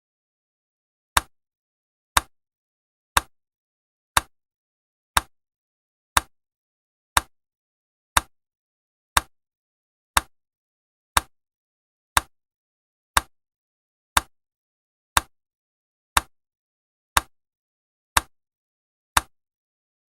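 Countdown timer's tick sound effect: short, sharp ticks about once a second, with silence between them.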